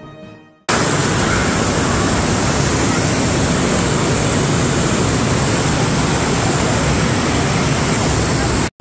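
Loud, steady rush of swirling water, as in a walk-through water vortex tunnel. It starts abruptly about a second in and cuts off sharply just before the end.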